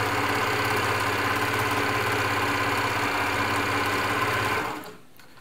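Elna Air Electronic TSP sewing machine running steadily at speed while sewing a stretch stitch, then slowing and stopping near the end.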